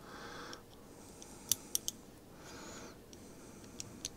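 Faint small metallic clicks from the removed trigger unit of a Weihrauch HW 35K air rifle as it is handled and worked: three quick clicks about one and a half seconds in and two more near the end, with two soft hisses between.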